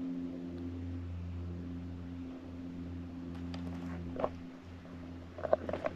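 A few footsteps crunching on loose rocks, mostly in the second half, over a steady low hum.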